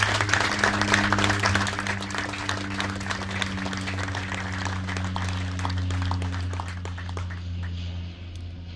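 A small audience applauding, strongest at the start and dying away by near the end, over a few low held musical notes and a steady low hum.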